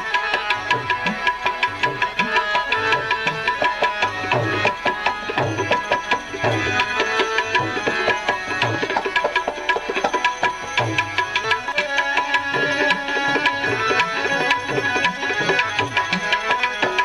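Tabla playing a fast, steady rhythm, with recurring deep bass strokes from the larger drum, over sustained held tones.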